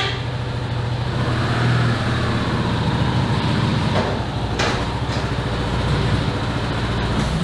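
Single-cylinder engine of a 2022 Kawasaki KLR 650 running at low revs as the motorcycle is ridden slowly up onto a motorcycle lift, with a couple of knocks about halfway through.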